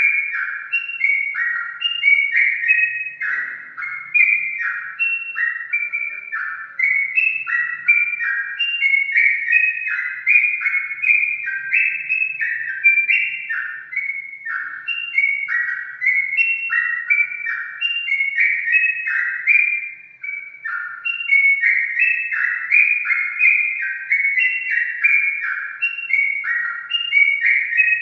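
Yellow-vented bulbul (trucukan) singing: an unbroken string of short whistled notes, each sliding down in pitch, several a second.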